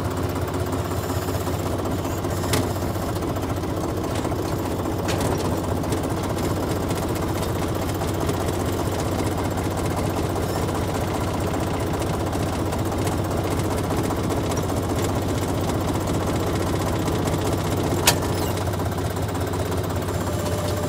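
International Harvester tractor's diesel engine running steadily at low speed with a rattling clatter. Two short clicks, about two and a half seconds in and near the end.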